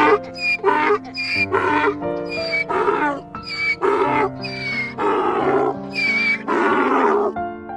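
Donkey braying, a rapid run of hee-haw calls that grow longer and louder toward the end, over steady background music.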